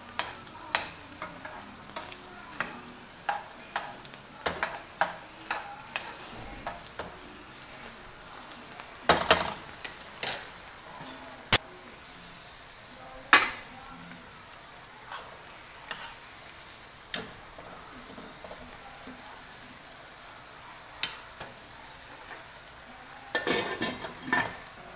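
Ground meat sizzling in a frying pan while being stirred, the utensil scraping and knocking against the pan again and again. Later a stainless steel pot lid clatters as it is lifted and set back on the pot, with a burst of clatters near the end.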